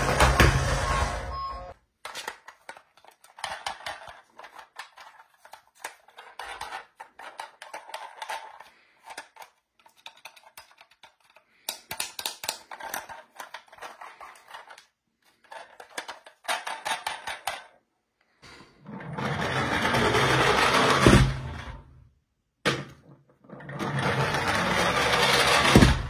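A toy police car's electronic beeping cuts off about two seconds in. Then come light clicks and rattles of plastic toy cars handled in a cardboard box. Near the end a toy ambulance whirs loudly twice, a few seconds each time, as it rolls across the floor.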